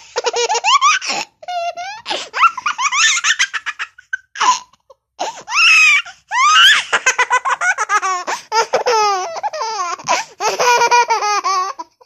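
Baby laughing in repeated bursts of high, quick-pulsed giggles, with a few short pauses between the fits of laughter.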